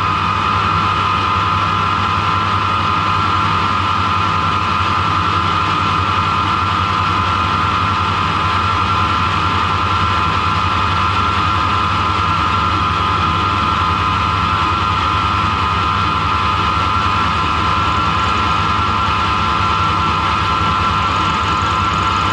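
Harrison lathe running at a steady speed with a constant high whine over a low hum, its tool turning down the end of a threaded EN8 steel bar.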